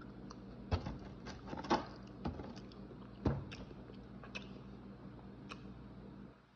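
Close-up eating sounds: chewing fried food, with a few sharp crunches or clicks over a steady low hum. The hum drops away near the end.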